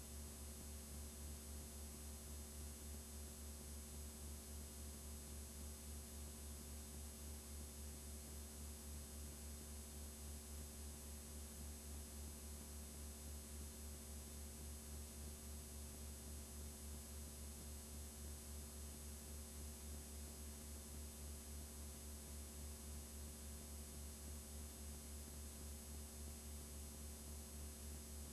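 Blank videotape playing back: a steady hiss with a low electrical hum underneath, with no other sound.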